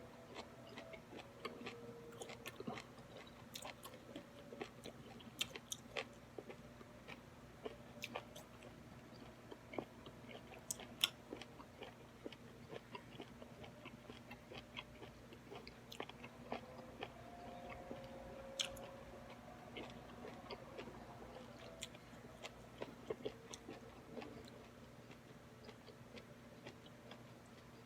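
Faint, close-up chewing of chewy beef tendon from a bowl of pho. Irregular wet mouth clicks and smacks are scattered throughout.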